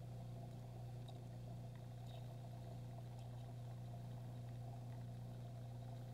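Steady low electrical hum, with a few faint ticks about one, two and three seconds in.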